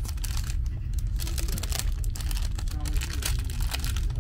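Brown paper bag crinkling as it is handled around a pastry, in quick irregular crackles, over the steady low rumble of a train.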